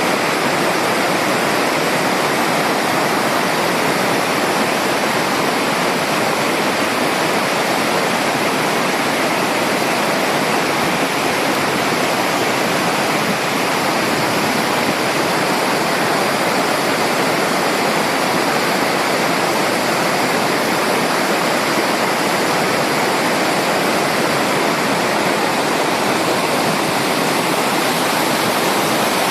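Running water rushing steadily, an even, unbroken hiss with little deep rumble.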